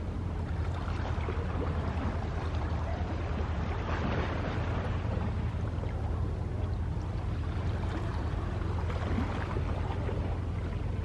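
Sea waves washing, swelling about four seconds in and again near nine seconds, over a steady low hum.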